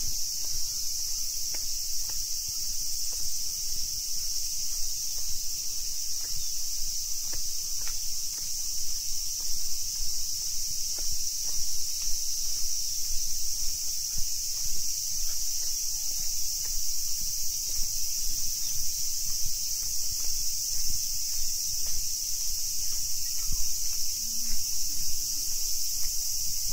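Steady, high-pitched drone of an insect chorus, with the faint irregular footsteps of someone walking on a stone-paved path beneath it.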